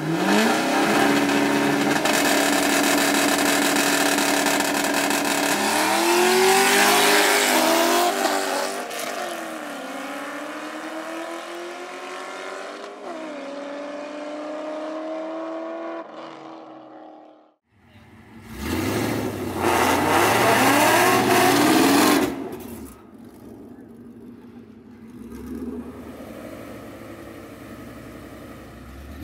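Two V8 race cars, one a Mustang GT with the 4.6-litre three-valve V8, launching at full throttle: the engines jump to high revs and hold there for a few seconds. They then pull through gear changes, the pitch rising and dropping back with each shift as they run away and fade. After a sudden cut, cars pass at full throttle for about four seconds, then V8 engines idle with a light rev.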